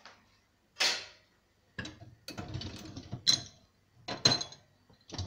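Dishwasher wire racks and dishes being handled: a clatter about a second in, a spell of rattling and clinking, then two more sharp clanks.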